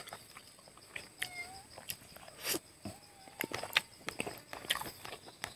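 Close-up chewing and lip-smacking as soft boiled chicken leg meat is bitten and eaten: a string of irregular wet clicks and smacks.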